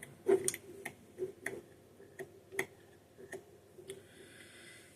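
Irregular small metal clicks and light knocks, about a dozen, from hand tools and Holley carburetor parts being handled and worked loose during disassembly.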